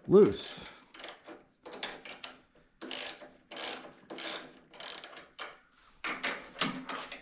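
Hand ratchet wrench clicking back and forth in repeated short strokes, about one to two a second, as a loose fastener on a go-kart buggy's steering front end is worked on.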